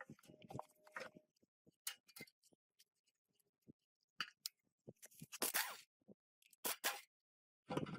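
Workshop handling sounds: scattered clicks and clinks of tools and metal parts, with a short scraping rush about five seconds in and two sharp knocks soon after.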